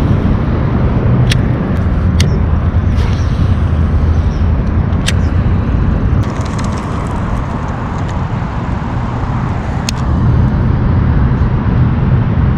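Steady low rumbling background noise, with several short sharp clicks from a baitcasting reel being handled.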